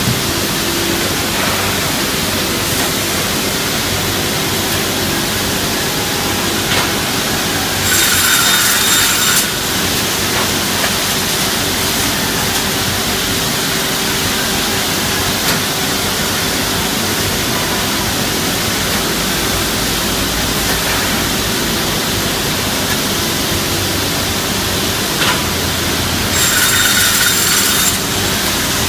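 Woodworking double-end saw running with a steady motor hum and noise. It makes two louder, higher-pitched cutting passes of about a second and a half each, one about a third of the way in and one near the end.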